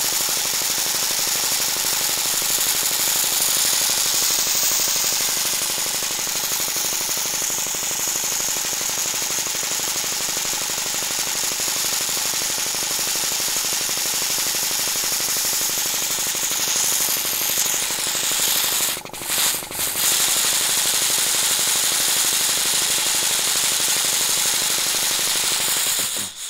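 Air compressor running steadily with a strong hiss. The sound dips twice in quick succession about nineteen seconds in, then cuts off suddenly near the end.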